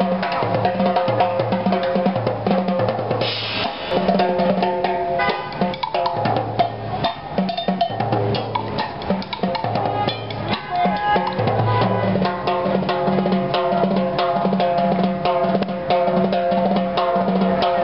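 Street drummer playing timbales in fast, busy rhythms, dense with rapid strikes and rolls, over music with a repeating bass line.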